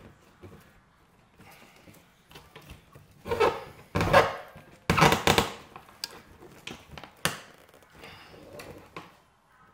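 Split spruce root being pulled through holes in birch bark as a bark panel is stitched on: three loud scraping pulls about halfway through, with light rustling and small taps of bark and root before and after.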